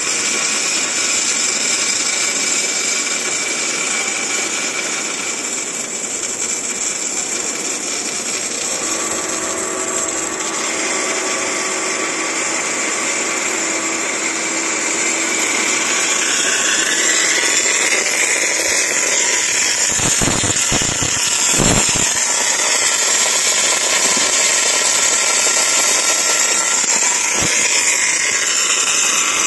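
MIG welding arc from a six-axis welding robot, hissing steadily as it lays a weld along steel plate seams, with a few short sharp pops about two-thirds of the way in and once more near the end.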